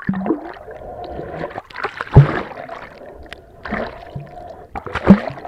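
Underwater swimming-pool sound heard by a submerged camera: muffled gurgling and bubbling, broken by sudden splashes and thumps, the loudest about two seconds in and another near the end.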